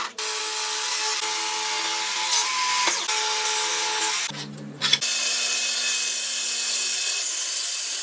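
Power tools working wood, in short edited clips. A steady noise breaks off abruptly about three and four seconds in, then from about five seconds in a louder run carries a high steady whine.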